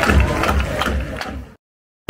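Football supporters' crowd noise in a stadium, with a steady low drum beat about three times a second, fading away and cutting to silence about a second and a half in.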